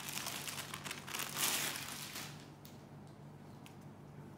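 Rustling of a crisp semi-chanderi saree being handled and unfolded, strongest in the first two seconds and then fading to a few light touches.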